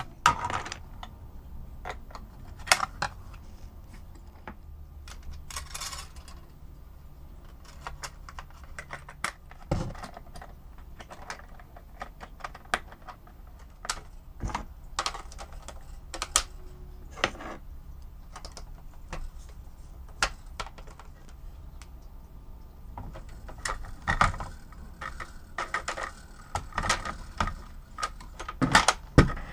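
Irregular clicks, taps and light knocks of small plastic and metal parts of an Omnibot 2000 tray mechanism being handled and taken apart, with quick clusters of clicks near the end.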